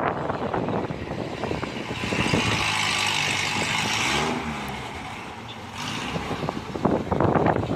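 Strong gusting wind rumbling and buffeting on the microphone, with a louder rushing hiss for a couple of seconds in the middle.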